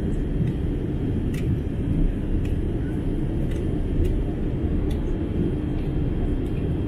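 Jet airliner cabin noise in flight: a steady low roar of the turbofan engines and airflow, with a few faint clicks over it.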